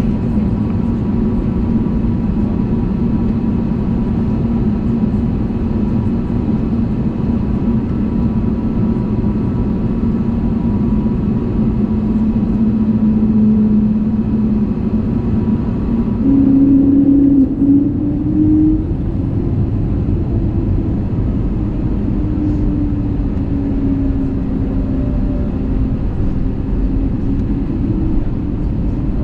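Engine noise of an Airbus A320neo's Pratt & Whitney PW1100G geared turbofans heard inside the passenger cabin: a loud, steady drone with a low hum. About 16 seconds in, the hum steps up in pitch and swells briefly as the thrust changes, then runs steady at the higher pitch.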